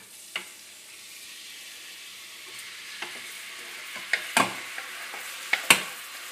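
Chopped onion, garlic and peppers sizzling as they drop into hot olive oil in a stainless steel pot, the hiss building as more goes in. A few sharp knocks come from the spatula and dish scraping against the pot, the loudest near the end.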